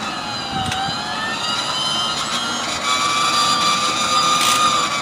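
Electric inertia starter on a Pratt & Whitney R-1830 Twin Wasp radial engine spinning up its flywheel before engagement: a steady mechanical whine of several tones slowly climbing in pitch, growing a little louder about three seconds in.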